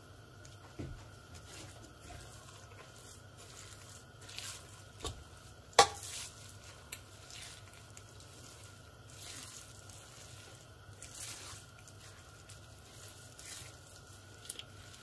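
Raw chicken mince being mixed with spices in a large metal pot, with soft squishing and scraping. A metal spoon clinks sharply against the pot once, about six seconds in.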